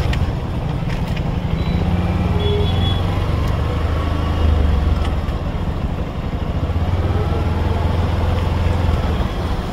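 Motorcycle engine running with a steady low rumble as the bike rolls slowly through shallow floodwater.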